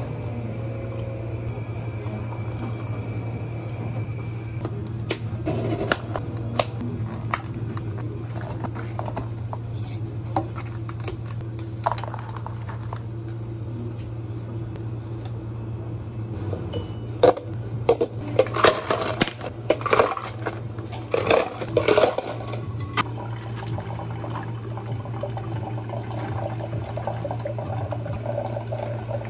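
Drink making at a cafe counter over a steady low hum: scattered clinks and knocks, then a burst of loud clattering of ice and cups about two thirds of the way through. Near the end, water is poured from a pitcher over ice into plastic cups.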